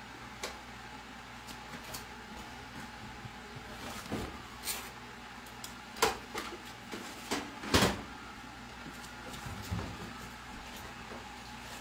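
Scattered metal knocks and clanks at an electric range as the oven door is opened and a metal baking pan is handled at the oven, the loudest clank about eight seconds in. A steady low hum runs underneath.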